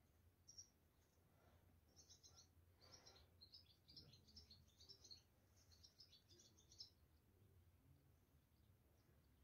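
Faint, rapid high chirps of a small bird, coming in clusters mostly between two and seven seconds in, over near silence.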